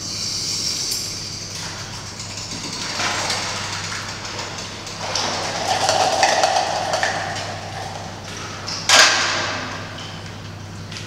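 Clattering and scraping noises from an experimental sound performance in an echoing hall, over a steady low hum, with one sharp hit about nine seconds in.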